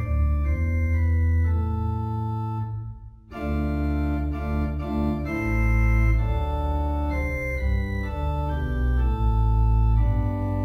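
Organ playing sustained chords over a deep bass, the notes changing every second or so, with a short break between phrases about three seconds in.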